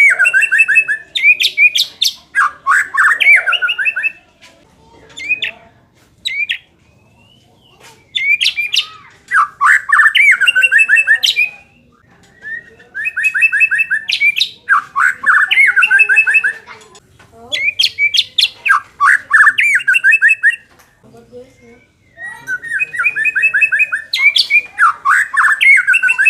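A songbird singing loud phrases of fast, repeated chattering notes. Each phrase lasts a few seconds, with short pauses between them, about five phrases in all.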